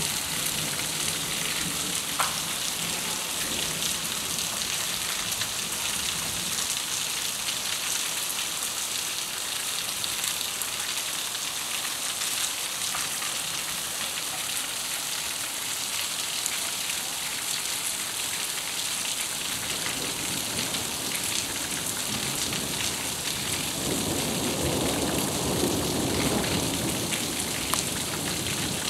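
Heavy summer-storm rain pouring steadily onto a paved, flooded square, a dense even hiss. Near the end a deeper rush swells for several seconds and then eases.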